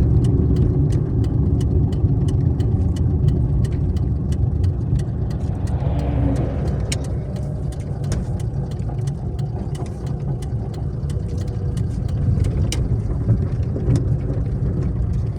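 Daewoo Matiz driving: a steady engine and road rumble with light, evenly spaced ticks running through it.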